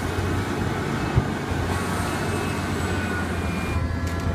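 Large Liebherr hydraulic excavator's diesel engine running steadily under load while it digs and loads a dump truck, a continuous low drone.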